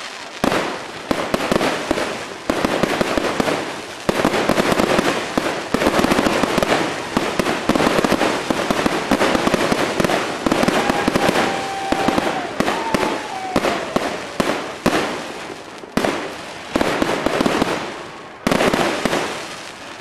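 Fireworks going off in a dense, continuous barrage of crackling bangs and firecracker pops. About halfway through, a short whistle sounds, followed by a falling whistle.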